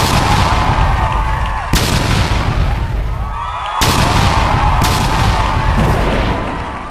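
Aerial fireworks going off in quick succession: sharp bangs at the start, near two seconds in and near four seconds in, with a continuous rush of crackling and whistling between them.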